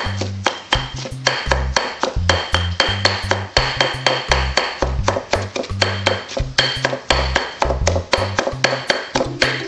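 Stone pestle pounding in a stone mortar, repeated sharp knocks of stone on stone and crushed leaves, over background music with a steady beat.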